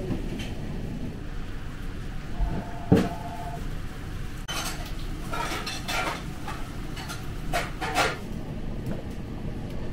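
Restaurant tableware clinking and clattering: plates, glassware and utensils knocking on a wooden counter. One sharp knock about three seconds in, then a busy run of clinks through the middle.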